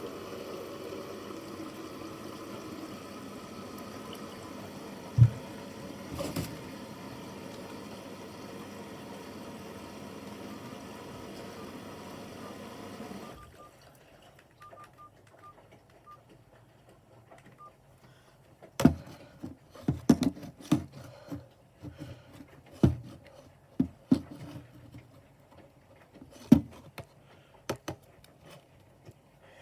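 Bosch washing machine on a Quick 15 wash taking in water: a steady hiss and hum that cuts off suddenly about 13 seconds in, followed by scattered knocks and thuds from the drum.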